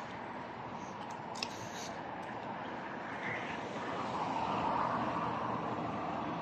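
Steady outdoor street noise of distant traffic, swelling a little about four seconds in, with a single short click about a second and a half in.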